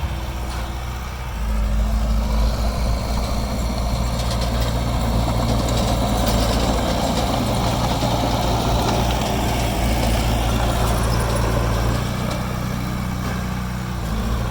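Heavy diesel engine of earthmoving machinery running. It picks up about a second in and settles back down near the end.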